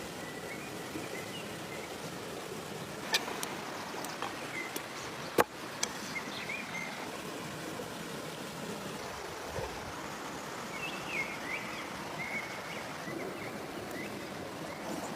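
Steady rushing noise with a few sharp clicks, the loudest about five seconds in, and faint bird-like chirps near the start and again past the middle.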